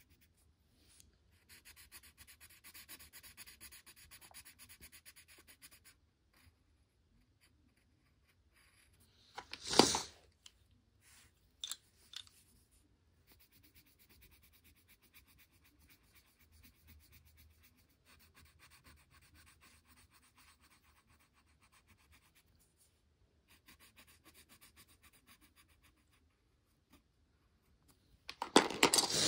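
Colored pencil shading on paper in quick back-and-forth strokes, in several stretches. About ten seconds in comes a short, sharp sniff from a stuffed-up nose, and another short loud sound comes near the end.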